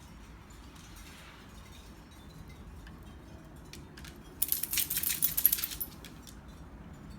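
Small metal pieces jangling for about a second and a half, a little past the middle.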